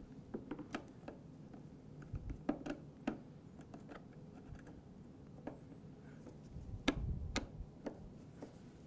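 A Phillips screwdriver turning a machine screw into a nut through a plastic kart fairing: faint scattered clicks and ticks of the hardware and plastic, with a few sharper clicks about seven seconds in.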